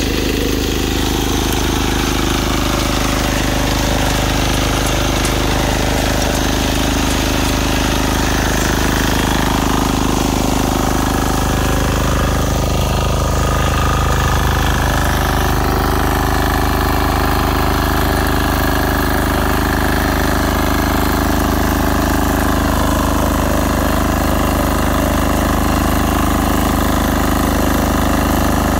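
Walk-behind power weeder's small engine running steadily as its rotary tines till the soil.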